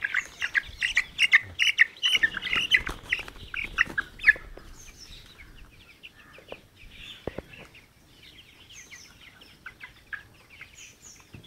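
A flock of Swarnadhara chicks, about six weeks old, cheeping and peeping as they feed on weeds. The chirps come thick and fast for the first four seconds or so, then thin out to scattered, fainter peeps.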